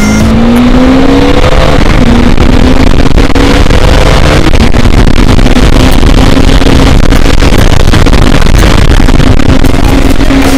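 Motorcycle engine pulling under acceleration, its pitch rising over the first second or so and then holding roughly steady, under heavy wind noise on the microphone.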